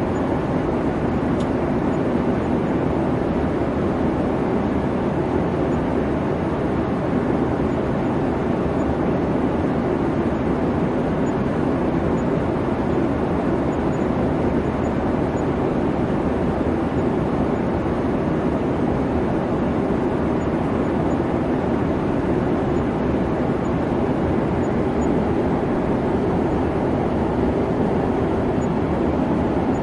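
Boeing 737 twin-turbofan airliner in flight: a steady, even rush of engine and air noise, heaviest in the low-middle range, with no change in pitch or level.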